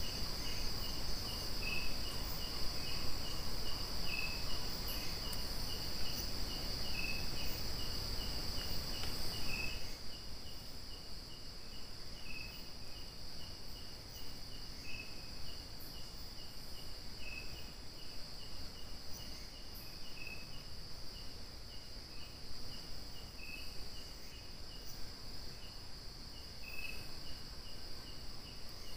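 Night insects, crickets among them: a steady high-pitched trill with a row of short, evenly repeated chirps over it. A low background hiss drops away about ten seconds in.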